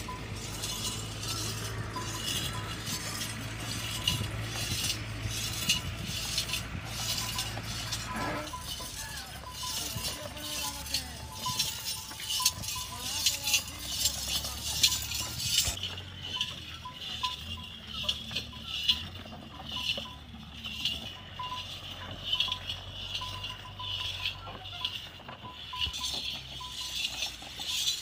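Metal jingling and clinking from a walking camel's harness and bells as it pulls a loaded cart. The clinks come in a loose rhythm, roughly with its steps.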